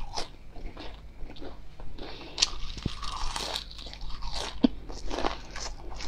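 Close crunching and chewing of crisp deep-fried battered enoki mushrooms, a steady run of irregular crackly crunches as the fried pieces are bitten and chewed.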